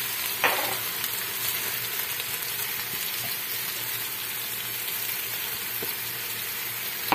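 Chopped onion and whole spices frying in hot oil in an aluminium pot: a steady sizzle, with a light knock about half a second in and a sharper one near the end.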